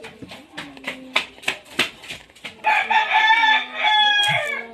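A rooster crowing: one loud, drawn-out call of about two seconds in the second half, after a run of sharp clicks.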